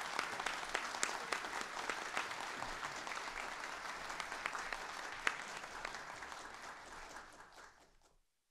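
Audience applauding, a dense patter of claps that slowly weakens and cuts off suddenly near the end.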